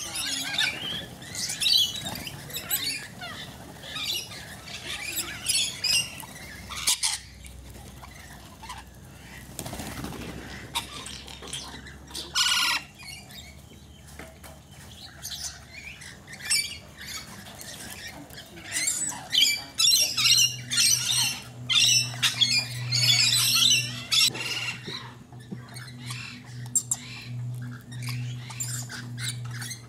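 A flock of rainbow lorikeets feeding and calling in many short, high, chattering screeches, busiest near the start and again about two-thirds of the way through. A steady low hum comes in about two-thirds of the way through.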